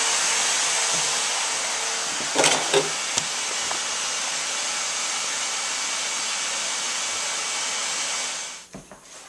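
Vacuum cleaner running with a steady, loud rush, with two or three knocks about two and a half seconds in, then switched off near the end.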